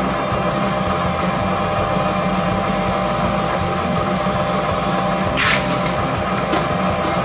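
Electric shredding machine running steadily with a low hum and a whine. A short, sharp burst of noise comes about five and a half seconds in.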